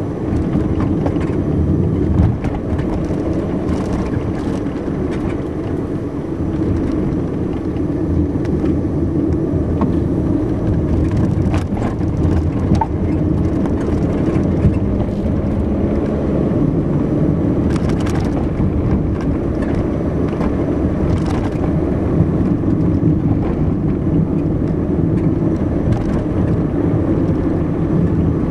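A car driving along a town road: steady engine and tyre noise, with a few short knocks along the way.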